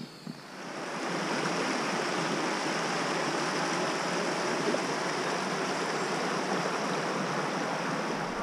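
Shallow river running over a stony bed: a steady rush of water that swells in about a second in and then holds even.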